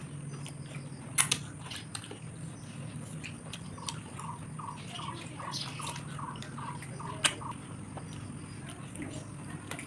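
Close-up mouth sounds of someone eating grilled chicken by hand: chewing with sharp wet smacks and clicks, over a steady low hum. From a little under halfway in, a run of about ten short chirps, about three a second.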